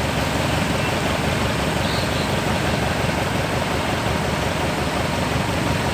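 Kubota DC-105X combine harvester's diesel engine running steadily as the machine edges forward onto the ferry barge.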